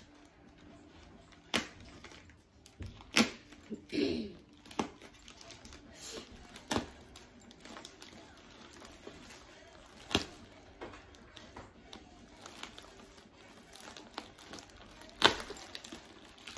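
Plastic mailer bag being slit, torn open and crinkled by hand, with several sharp snaps scattered through; the loudest comes near the end.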